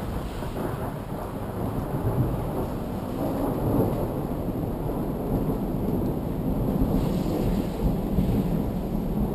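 A long roll of thunder that breaks just before and rumbles on for the whole stretch, over falling rain.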